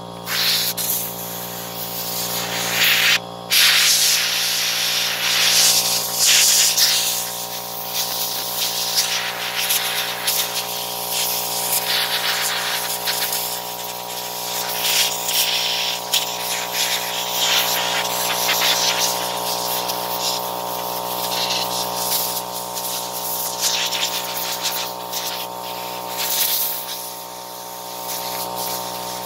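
Compressed-air blow gun hissing in repeated blasts as dust and grime are blown off a chainsaw's clutch cover, over a steady machine hum.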